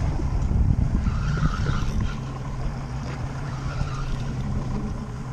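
Fishing boat's engine running steadily at slow trolling speed, a constant low hum, with wind and water noise.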